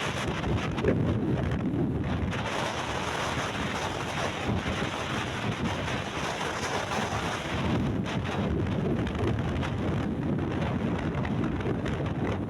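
Wind buffeting the microphone: a steady rushing noise, heaviest at the low end, with no horn melody or clear engine note.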